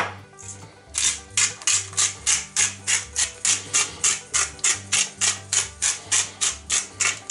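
Hand-twisted spice mill grinding: a run of short, dry crunching rasps, about three to four a second, one with each twist, starting about a second in. Background music with low bass notes plays underneath.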